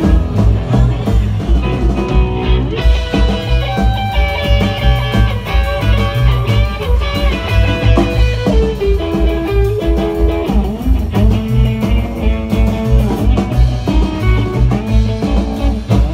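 Live rock band playing loud: electric guitars over a steady, driving drum-kit beat.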